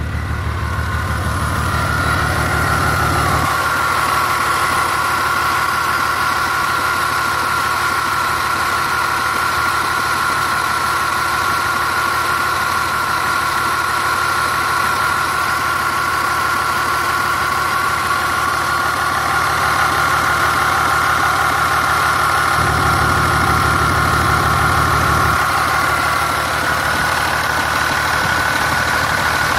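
BMW 330xd E46's three-litre straight-six diesel idling, with a steady whirring, blender-like noise, a bit like a chain, heard as a high whine over the idle. The owner wonders whether it comes from the accessory-belt tensioner pulley, which seems to move.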